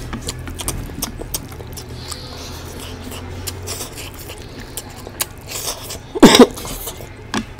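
A person eating mutton curry and rice close to the microphone: chewing and mouth noises with many small clicks and smacks. About six seconds in there is one loud, short cough-like sound.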